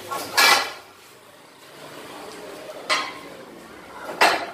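Steel borewell drill pipes knocking against metal: three sharp metallic clanks with a short ring, the first two about two and a half seconds apart and the third a little over a second later.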